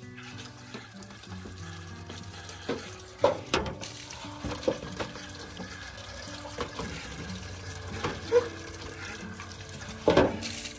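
Tap water running into a stainless steel tray while a hand swishes and splashes in the water, with a few sharp splashes. Near the end the tray is tipped and the water pours off into a barrel.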